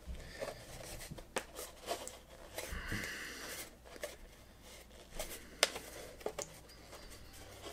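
Light plastic clicks and scraping as a Lego plate is pried by hand off the studs of a 3D-printed ABS Lego-compatible baseplate, a few sharp clicks scattered among softer rubbing.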